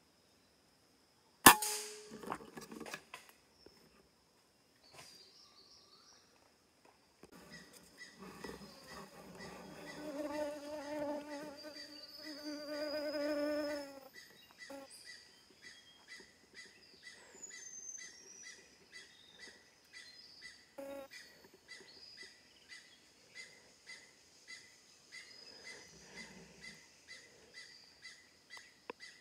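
A single sharp PCP air-rifle shot about a second and a half in, the loudest sound, with a brief ringing tail. Forest insects and birds call over it: a wavering pitched call from about eight to fourteen seconds, then short chirps repeating about twice a second.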